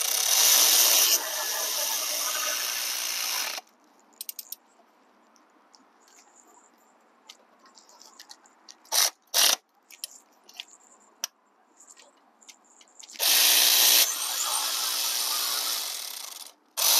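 Electric ratchet spinning a 12 mm socket in bursts, running down and tightening bolts on a transmission filter. There is a run of about three and a half seconds at the start, two short blips about nine seconds in, and another run of about three seconds near the end, each louder for its first second.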